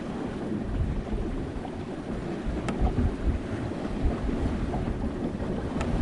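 Sailboat under way: a steady wash of water with an uneven low wind rumble on the microphone, and two faint sharp ticks.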